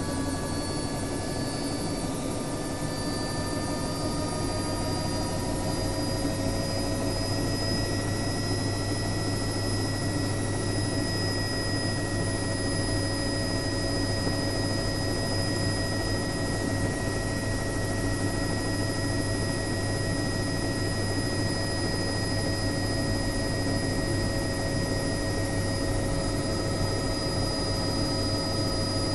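Helicopter turbine and rotor running steadily, a whine over a low rotor drone. The pitch rises slightly over the first several seconds, then holds.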